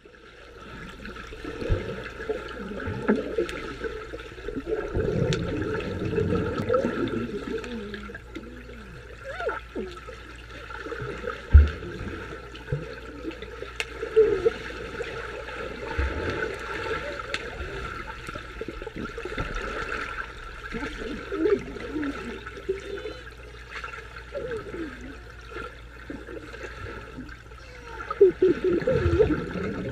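Water heard underwater: muffled sloshing and bubbling as swimmers move and dive close by, rising and falling in waves, with a couple of dull thumps, the loudest about a third of the way in.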